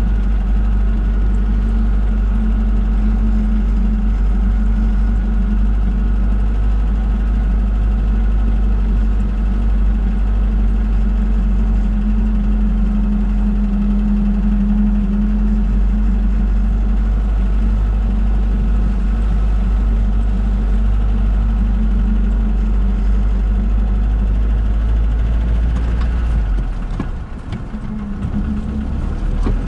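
UAZ Bukhanka van's engine running steadily with a deep, even drone as it drives off-road; the sound dips briefly about 27 seconds in, then picks up again.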